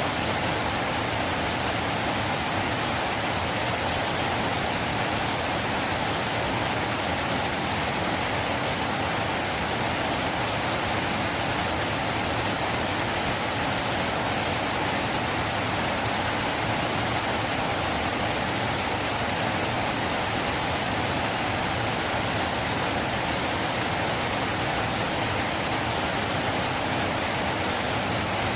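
Flowing river water rushing steadily, an even, unbroken noise with no change in level.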